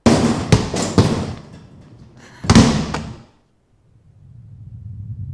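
A toilet stall door slammed shut, with sharp clicks and rattles in the first second, then a second loud bang about two and a half seconds in. After a brief silence a low rumbling drone fades in.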